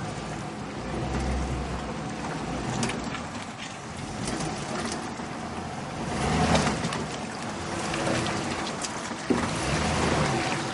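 Chevy 4x4 engine running and rising and falling as the truck crawls along a muddy track, with tyres splashing and squelching through puddles. There is a sudden knock near the end.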